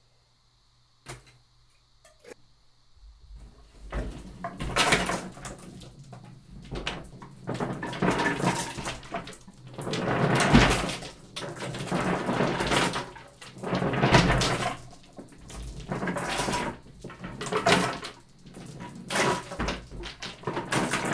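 Dozens of marbles rolling across paint-covered paper in a wooden-framed tray as it is tilted back and forth, a rumble that swells and fades every second or two. There is a single click about a second in, and the rolling begins at about three seconds.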